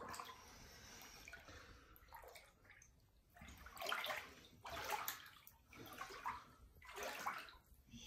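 Floodwater sloshing and splashing in uneven surges about once a second, as someone wades through ankle-to-shin-deep water standing over tatami floors inside a house.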